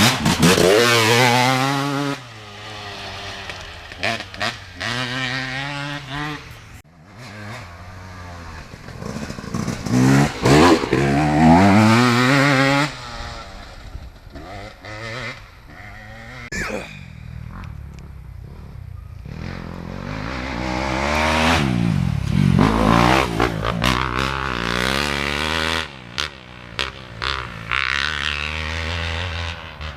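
Dirt bike engines revving hard as riders accelerate, several times over. Each run climbs in pitch, breaks off at a gear change and climbs again, over a lower idling and running engine background.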